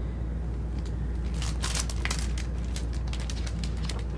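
Paper pages of a picture book rustling as they are handled and turned: a run of short, scratchy rustles starting about a second and a half in, over a steady low hum.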